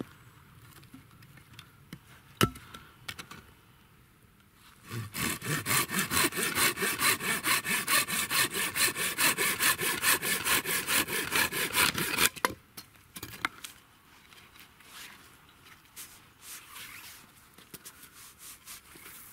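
Silky Gomboy folding saw cutting through a thin, bark-covered branch with quick, even strokes, starting about five seconds in and stopping abruptly some seven seconds later. Before and after, quieter knocks and rustles of sticks being handled, with one sharp knock about two and a half seconds in.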